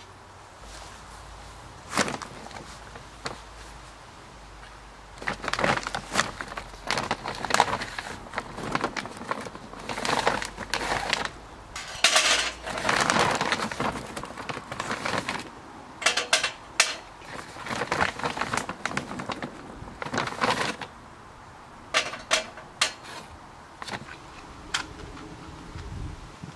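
Charcoal clattering and rustling as it is tipped from a paper sack into a metal chimney starter, in a run of bursts that is loudest about halfway through, then scattered sharp clicks and knocks as the coals and grill parts are handled.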